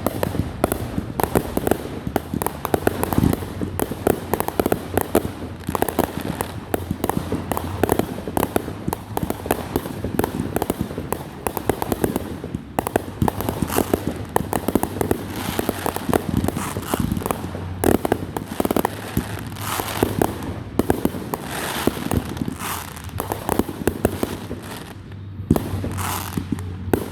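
Fireworks going off in a rapid, continuous barrage of bangs and crackles, easing briefly near the end.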